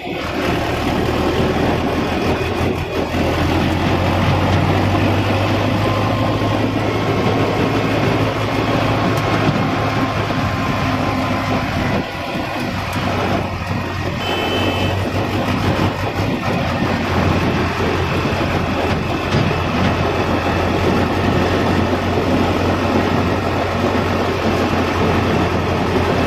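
Corn-harvesting farm machinery running steadily, its engine humming low under a constant mechanical clatter, with a brief dip in level about halfway through.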